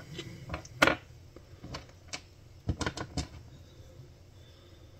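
Scattered light clicks and taps of hand tools and wire being picked up and set down on a plywood workbench, the sharpest just under a second in and a quick run of three or four near the middle.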